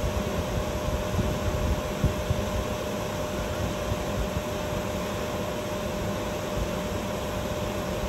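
Red Rattler vintage electric train car humming steadily, with a thin, steady high whine over the hum.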